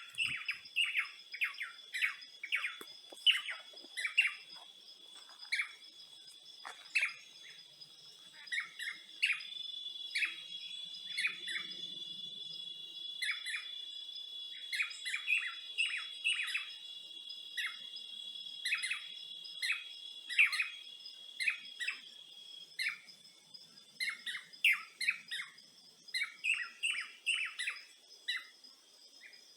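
Birds chirping in many short, quick notes, over a steady high-pitched insect drone that thickens through the middle and thins again near the end.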